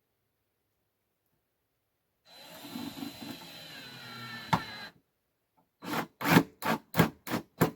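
Cordless drill running for about two and a half seconds as it drives a screw into wood, with a steady whine and a sharp click near the end. It is followed by a quick run of about nine short, loud bursts, roughly three a second.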